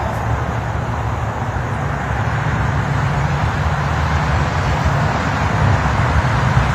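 Steady outdoor background noise: a low rumble with a hiss over it, with no distinct knocks or events.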